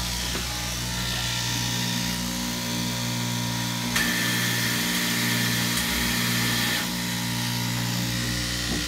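Electric straight-knife cloth cutting machine running with a steady motor hum. About four seconds in, a higher whine joins it for about three seconds.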